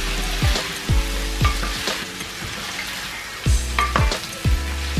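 Sliced vegetables sizzling in oil in a stainless steel pan, with the scrape of a spatula stirring them. Background music with a deep bass and a kick drum plays over it.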